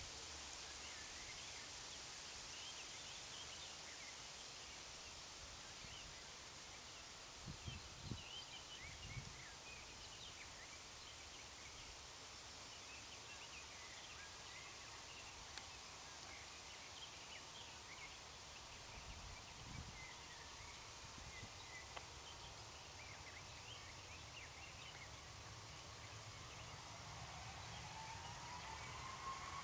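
Faint outdoor ambience with small birds chirping throughout and a few soft low thumps. Near the end a distant airliner's jet engines begin a slowly rising whine as it lines up on the runway.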